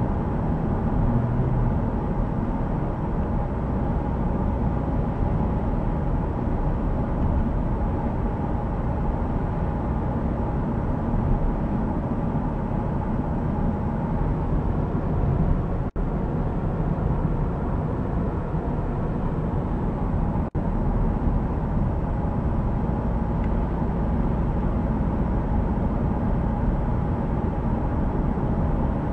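Road noise inside the cabin of a 2014 Dodge Durango cruising steadily at about 45 mph: an even, low, steady hum of tyres and wind. The sound drops out for an instant twice, about halfway through.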